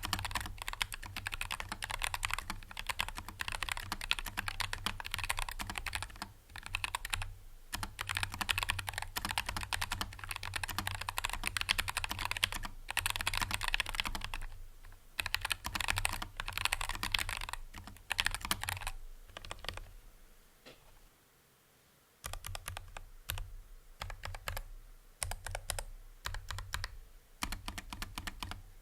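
Typing on a Keychron K3 Pro low-profile wireless mechanical keyboard with Gateron 2.0 low-profile switches: fast runs of keystroke clicks with short breaks, a pause of about two seconds two-thirds of the way through, then shorter bursts.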